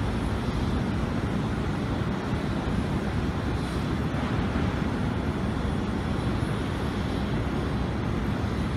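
Steady, even low rumble of outdoor airport ambience, with no distinct events.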